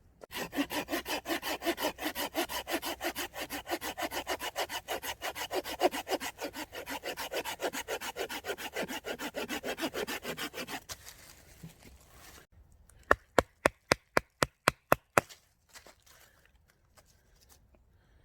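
Hand saw cutting through wood with quick, even strokes, about four a second, for about ten seconds. It stops abruptly, and soon after comes a quick run of about ten sharp knocks.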